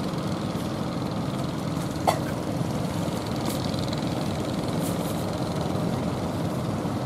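Engines of outrigger fishing boats running steadily as a low drone, over the wash of waves. There is a short sharp sound about two seconds in.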